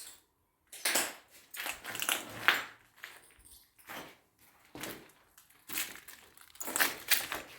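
Gritty debris crunching in a series of irregular crunches, roughly one every half second to second.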